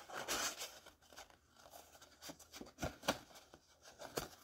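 Scissors snipping through paper in a few short, irregular cuts, with a brief rustle of paper at the start; the loudest snip comes a little after three seconds in.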